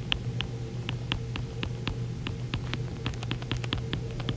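Stylus tip ticking against a tablet's glass screen while handwriting a word: a quick, irregular run of light clicks over a steady low hum.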